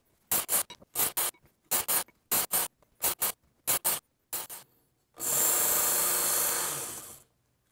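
Work Sharp Ken Onion Edition belt sharpener grinding a steel knife blade. First comes a quick run of short rasping bursts in pairs, about one pair every two-thirds of a second. Then a single steady grinding pass of about two seconds along the running belt, which stops near the end. The belt runs at low speed so the damaged edge is ground away without overheating the steel.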